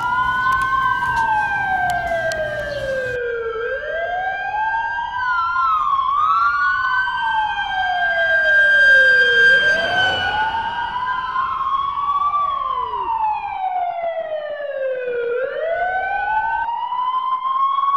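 Police siren wailing, its pitch sweeping up quickly and falling slowly, repeating about every three seconds. A second siren tone sounds with it.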